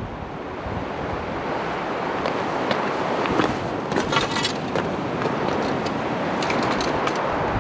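Steady rush of strong wind and surf, with a scatter of sharp clicks and rattles, clustered about four seconds in.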